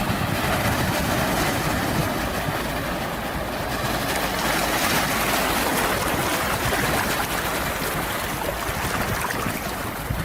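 Sea waves washing ashore as a continuous rush of surf, swelling to a peak around the middle and easing off toward the end.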